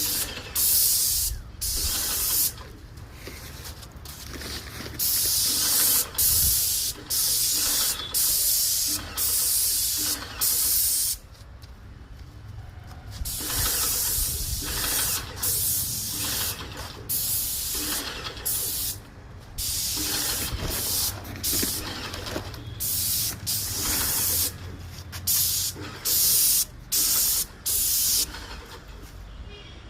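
IN-STNT8 paint spray machine spraying paint onto a wall: a hiss that starts and stops over and over, each spray lasting about a second, over a low steady machine hum.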